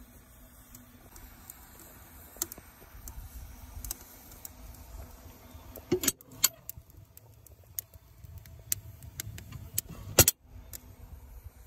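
Metal clicks and clinks of a steam traction engine's firebox door latch being worked by hand, ending in one loud clank about ten seconds in as the door comes open.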